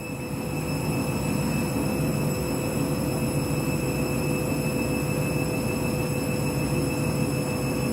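Candy washing machine running in a heavy suds lock, excess foam filling the door window, giving a steady rumble with a constant motor whine.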